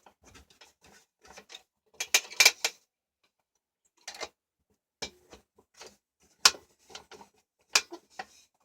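Handling noises from an old vacuum cleaner and its fabric bag liner: scattered clicks and knocks. A quick cluster comes about two seconds in, a quiet pause follows, then single sharper clicks are spread through the rest.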